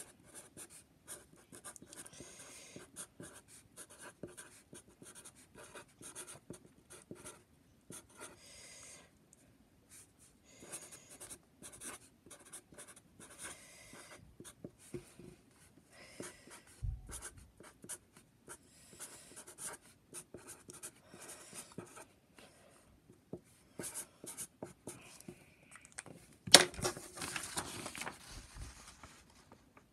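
Felt-tip marker writing on paper in quick short strokes with brief pauses between words. About 26 seconds in there is a sharp knock, then paper rustling as the sheet is handled.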